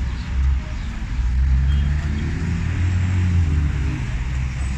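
Street traffic: a car engine drones and rises in pitch through the middle, over a steady low rumble and hiss.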